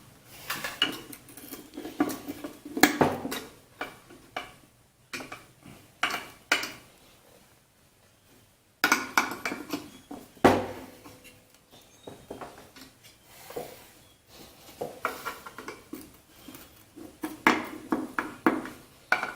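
Metal tools clinking and knocking against a small Briggs & Stratton L-head engine as a stuck cover is pried loose, in irregular sharp knocks with a quiet gap of about two seconds in the middle.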